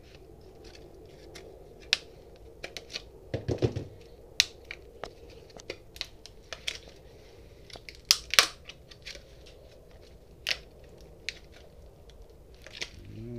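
Tape and plastic wrapping being peeled and torn off a battery pack by hand, with scattered sharp crackles and clicks and the snip and tap of wire cutters.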